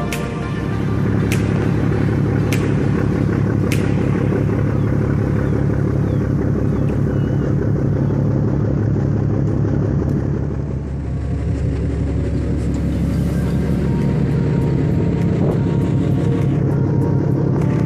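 Steady low drone of a passenger ferry's engines, heard from the open deck over a hiss of wind and rushing sea water.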